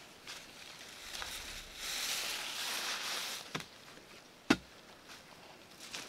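Rustling of a bundle of freshly pulled lemongrass stalks being handled and laid down on dirt, then a single sharp thump a little later, the loudest sound.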